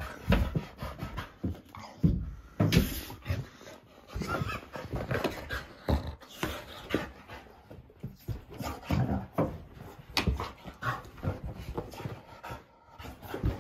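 A dog panting and scuffling as it rolls and scrambles about on a carpeted floor, with irregular short bumps and rustles.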